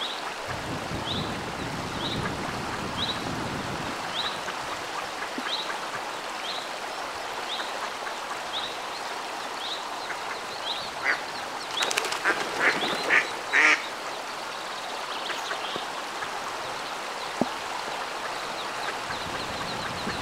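Mallard ducklings peeping, short high chirps about once a second, over a steady watery hiss. About twelve seconds in there is a brief run of louder calls.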